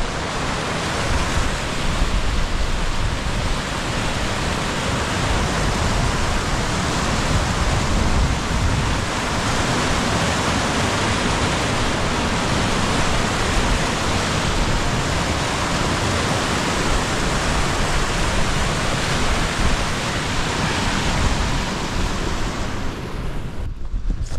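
Fell stream in spate, swollen with rainwater, rushing and foaming down a rocky cascade in a steady roar of white water. It cuts off suddenly about a second before the end.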